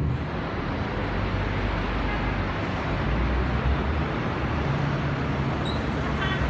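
Steady city street traffic noise: a continuous wash of passing road vehicles, with a low engine hum growing stronger about five seconds in.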